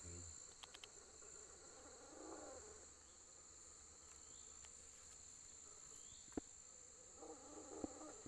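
Faint, steady high-pitched chirring of insects, with a few faint low murmurs and small clicks.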